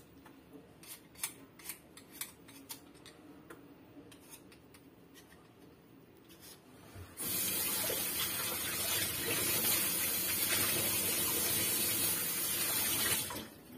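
A vegetable peeler scraping a potato in short, irregular strokes, then about seven seconds in a kitchen tap is turned on and runs steadily into the sink for about six seconds before being shut off.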